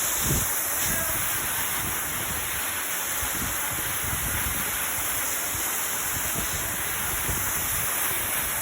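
Waterfall pouring down: a steady, even rush of falling water.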